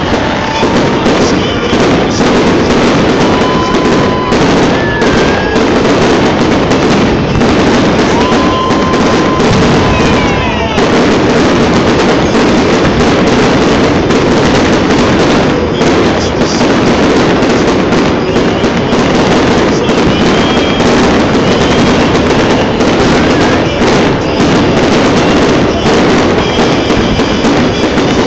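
Fireworks barrage: a loud, dense, unbroken run of bangs and crackling from many shells going off together, with a few whistling shells gliding in pitch now and then.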